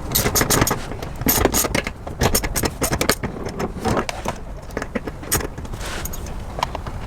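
Irregular clicks and scrapes of a driver with a T15 Torx bit working a bolt out of an interior trim plate, metal tool against metal and plastic, over a steady low rumble.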